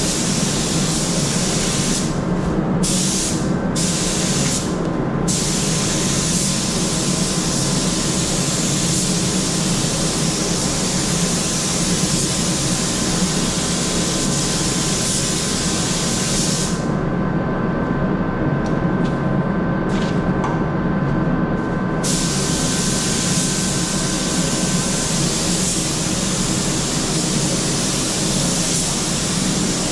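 Compressed-air spray gun hissing steadily, its air cut off for a few short gaps early on and for several seconds in the middle, over a steady low hum.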